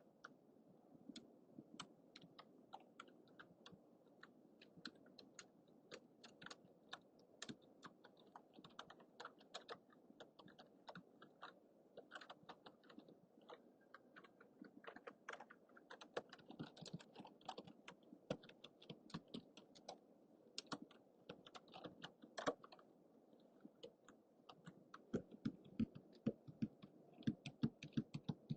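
Typing on a computer keyboard: an irregular run of keystroke clicks, several a second, getting louder and heavier near the end. Under the clicks is the faint steady hiss of a low-budget microphone.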